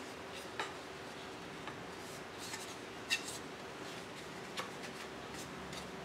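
Wooden whirligig blade being worked into a slot in a poplar hub: a few light scrapes and clicks of wood on wood, the loudest about three seconds in, over a faint steady hum. The blade is a tight fit in the slot.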